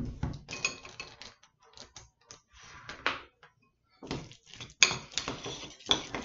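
Irregular clicks and scrapes of a measuring spoon scooping taco seasoning from a large plastic jar, then a utensil clinking and scraping against a glass bowl as the tuna mixture is stirred, with one sharp loud clink a little before five seconds in.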